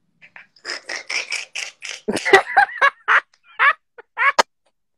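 A woman laughing hard: a quick run of short breathy bursts, then high squealing bursts that stop a little before the end.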